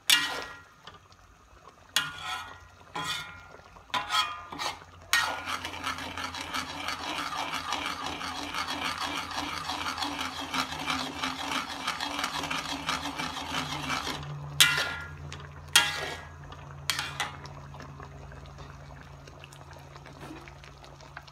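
A metal ladle stirring a thick sauce in a metal pan: a few sharp clinks against the pan, then about nine seconds of steady scraping and stirring, then three more clinks before it goes quieter.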